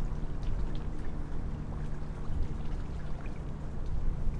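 Low, steady drone of a passing container ship's diesel engine, with water lapping and splashing close by.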